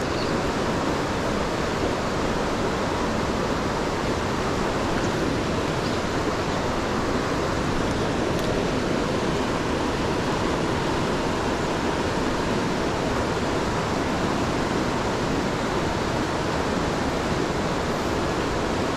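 Steady rush of a fast river running through whitewater rapids.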